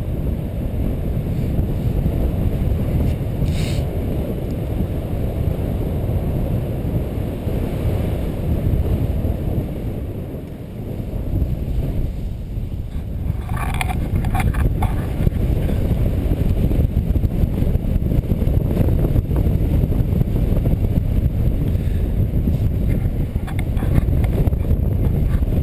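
Wind rushing over an action camera's microphone in flight under a paraglider: a steady low rumble that eases briefly about ten seconds in, with a few short crackles around the middle.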